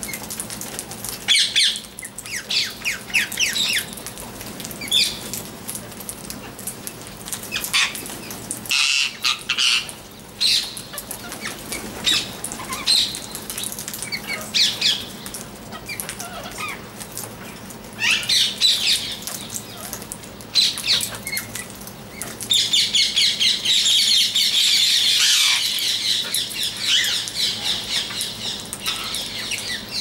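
A flock of rose-ringed parakeets calling in bursts of shrill, rapidly repeated screeches, with a dense, loud stretch of many birds calling together about three-quarters of the way in.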